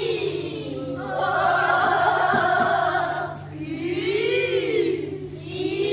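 A group of children singing together, their voices swooping up and down in pitch twice with a higher held phrase in between.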